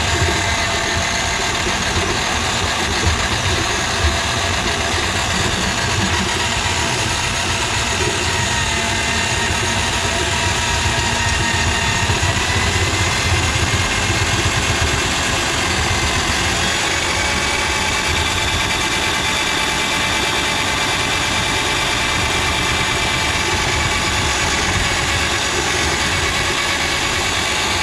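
Handheld electric drum auger running steadily, its motor whining as the spinning cable works through grease in a kitchen sink drain line. The whine steps up slightly in pitch a couple of times.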